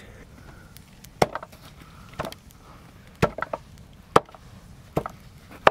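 Blade chopping into a wooden surface: six sharp chops, roughly one a second, with a couple of lighter quick hits after the third.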